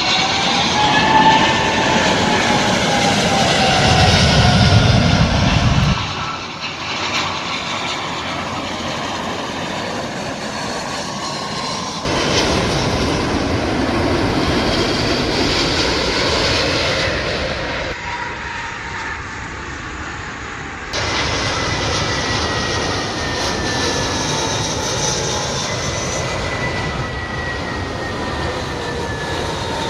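Jet airliners passing low on approach to land, their engines whining in thin tones that slowly slide in pitch over a steady rush. The sound jumps abruptly several times, cutting from one aircraft pass to the next.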